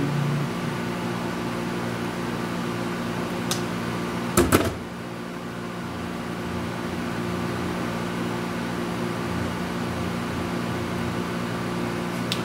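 Steady mechanical hum of a running appliance, with a faint click about three and a half seconds in and a louder pair of sharp clicks about a second later as small metal parts of a fan's switch plate are handled.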